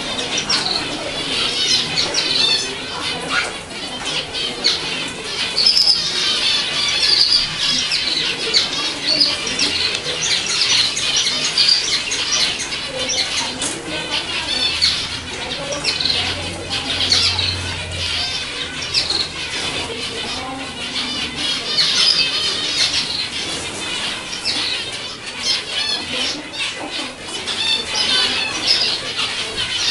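Many zebra finches calling at once: a dense, continuous chatter of short, high calls from the aviary, with no pause.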